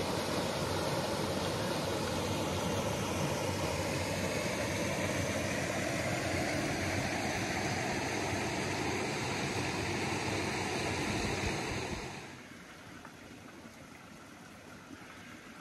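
Mountain creek water rushing down a small cascade over granite, a steady hiss of falling water. About three-quarters of the way through it drops off sharply to a much fainter stream sound.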